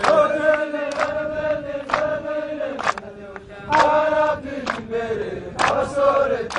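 A group of men chanting together in unison, holding long steady notes, with a sharp hit about once a second.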